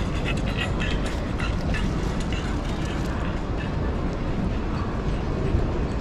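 Steady low rumble of a large, crowded exhibition hall, with scattered light clicks and knocks in the first two seconds.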